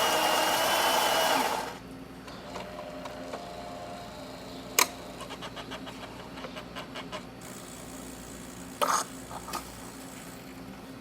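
Saeco Incanto Deluxe super-automatic espresso machine: its built-in grinder runs loudly and stops about a second and a half in. A quieter hum follows, with sharp clicks and a quick run of ticks as the machine moves on into its brew cycle.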